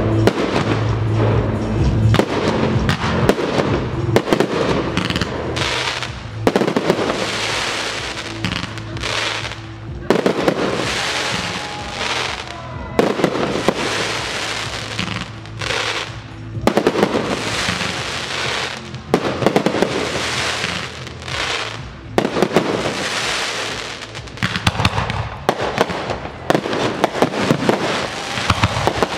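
Aerial firework shells bursting in quick succession, with sharp bangs and repeated stretches of dense crackling from glittering stars, each lasting a second or two.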